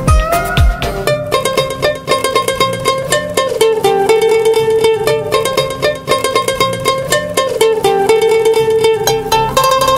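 Background music: an upbeat instrumental of quickly plucked strings. About a second in it takes over from a passage of deep, falling thuds.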